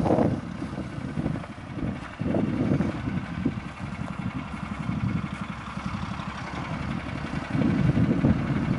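Motor powering the hydraulics of a Load King nitrogen stinger trailer, running steadily and a little louder near the end.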